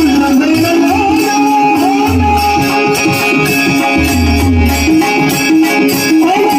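Marathi devotional bhajan sung in a very high voice, the melody bending and sliding over a steady drone. Percussion keeps an even beat, with jingling strokes and deep drum thumps.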